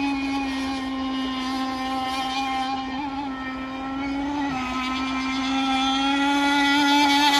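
Radio-controlled model racing boat running at speed across the water: a steady high buzzing engine note that dips slightly in pitch about halfway, then grows louder near the end.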